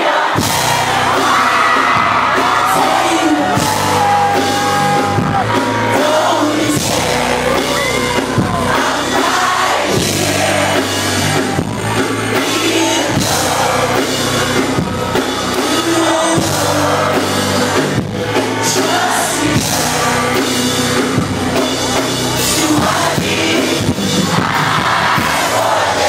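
Live band music heard from within the crowd: bass and drums come in right at the start, driving a steady beat under guitar and singing, with fans yelling and whooping over it.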